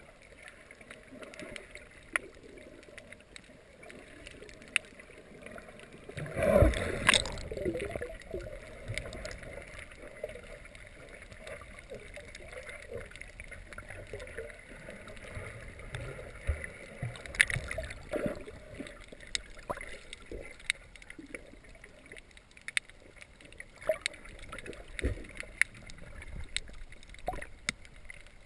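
Underwater sound picked up by a submerged GoPro: a muffled, steady water noise with many scattered short clicks and crackles. About six and a half seconds in there is a loud burst of noise lasting about a second.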